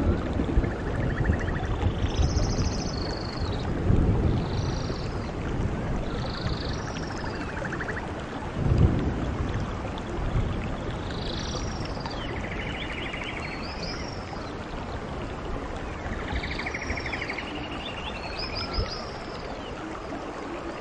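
Steady rain falling, with birds calling over it: short chirps, whistled glides and trills, one every second or so. Two deeper rumbles stand out, about four and nine seconds in.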